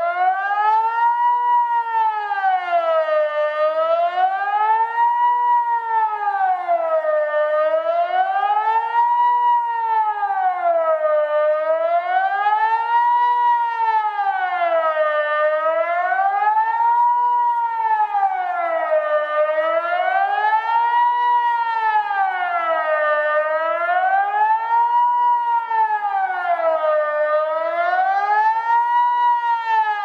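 Emergency warning siren wailing, its pitch rising and falling smoothly about once every four seconds.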